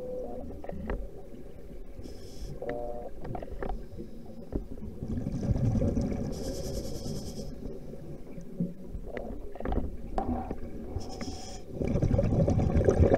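Scuba diver breathing through a regulator underwater: a short hiss on each inhale about every four seconds, with a low bubbling rumble of exhaled air between them, loudest near the end.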